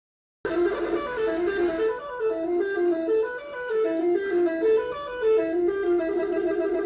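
Bus 'telolet' musical horn, a set of air-horn trumpets, playing a quick tune of stepped notes that starts suddenly and settles into a held chord near the end.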